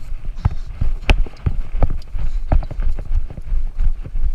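Running footsteps on a wet grassy riverbank, heavy thumps about three a second, picked up by a body-worn action camera with low wind rumble on its microphone.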